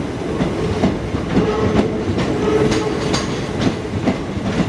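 Model train running over the layout's track and points: a steady electric motor hum with the wheels clicking irregularly over rail joints and the scissor crossing.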